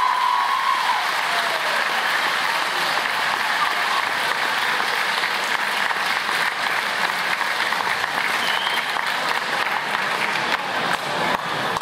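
Arena crowd applauding steadily, the clapping thinning into more separate claps near the end.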